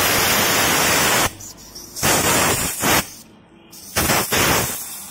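Compressed air hissing from an air chuck held on a motorcycle inner tube's valve stem, inflating the freshly patched tube. A continuous hiss stops about a second in, followed by two shorter bursts.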